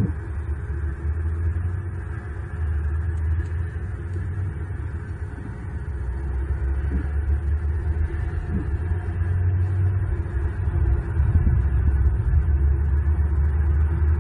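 Steady low rumble of outdoor background noise, growing somewhat louder after about six seconds, with a few faint soft ticks.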